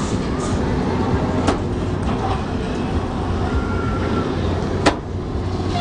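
Steady low rumble of a spinning carnival flat ride running, with wind on the microphone, broken by two sharp clicks about a second and a half in and near the end.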